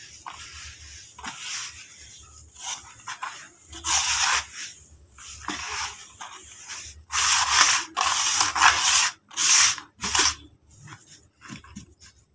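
Hands crumbling and rubbing dry, powdery red dirt in a plastic tub: a dry, grainy rustle in repeated bursts, loudest about seven to ten seconds in and thinning to a few light pats near the end.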